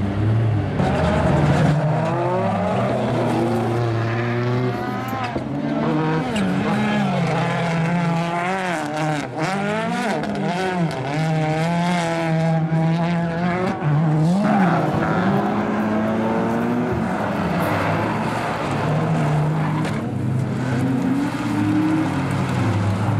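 Rallycross cars racing: engines revving hard and rising and falling in pitch through the gears, several cars heard at once.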